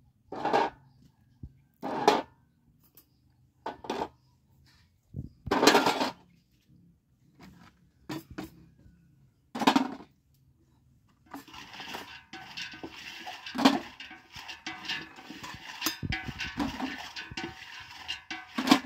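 Plastic cups and plates being picked up and set into a metal basin: separate knocks and clatters, a second or two apart, becoming a busier run of clattering in the last several seconds.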